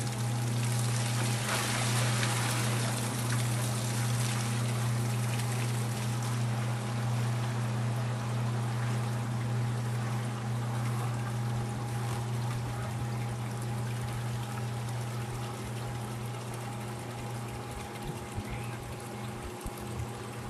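Electric sump pump running with a steady hum while its discharge pours a stream of water into a plastic bucket; the pouring is loudest in the first few seconds.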